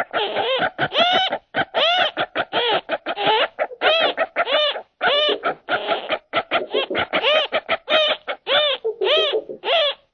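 Slowed-down animal chattering calls from a kookaburra-and-monkey sound effect, starting abruptly: a dense, rapid run of short, arching, hooting cries, several a second, lowered in pitch by the slow motion.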